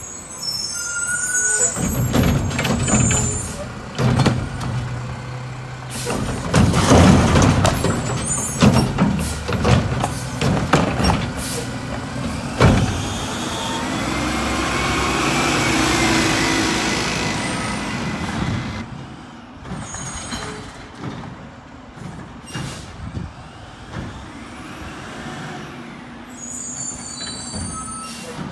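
Mack LR diesel garbage truck running and revving as its Curotto-Can automated arm works the curbside carts. A clatter of bangs follows from the cart and arm hitting the hopper, then a long hiss of air or hydraulics that lasts several seconds.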